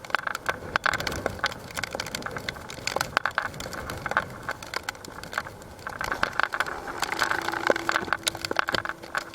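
Typhoon wind and rain, heard as dense, irregular crackling noise, with a faint steady tone entering about seven seconds in.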